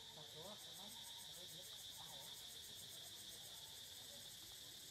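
Faint, steady insect chorus: a continuous high buzz with a rapid pulsing shimmer above it, and a few faint short chirps.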